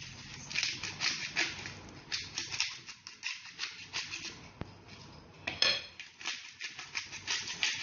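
Pepper mill being twisted by hand: a rapid run of short grinding strokes, with one sharper, louder stroke about two-thirds of the way through.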